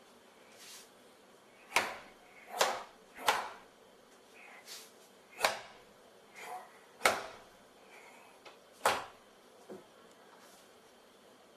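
Sharp cracks from a martial artist's explosive fa jin strikes in a Chen-style taiji form: about six loud snaps at irregular intervals with fainter ones between, each with a short echo in a small room.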